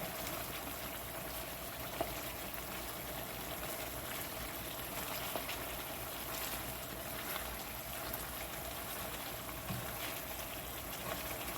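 Pot of jerk chicken boiling in its seasoning sauce: a steady bubbling hiss, with a faint click about two seconds in.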